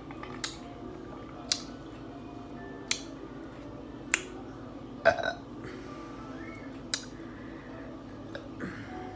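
A woman's short, small burps in a series, about six at intervals of one to two seconds, the one about five seconds in the loudest and longest, as she works to bring up a burp stuck after eating and drinking Coke.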